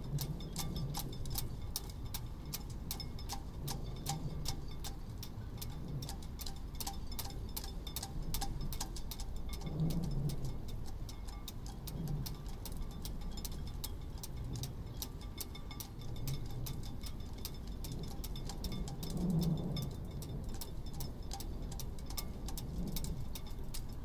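Sailboat rigging ticking against masts in a mild wind: a dense run of light clicks, several a second, over a low wind rumble that swells now and then.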